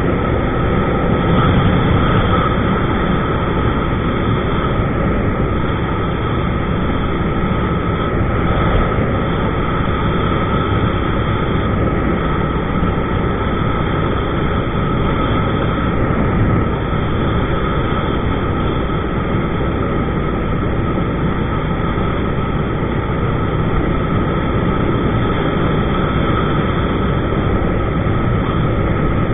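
2000 Suzuki SV650's 645 cc V-twin engine running at a steady cruise, mixed with wind and road rush on a bike-mounted GoPro.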